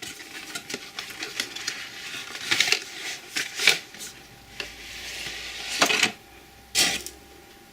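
Hands opening and handling the packaging of an unboxing: a run of small clicks and taps with several louder rustling scrapes of cardboard and wrapping.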